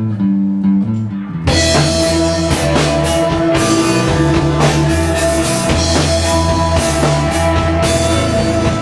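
Rock band music: a bass guitar line plays alone, then drums and electric guitars come in together about a second and a half in and the band plays on at full level.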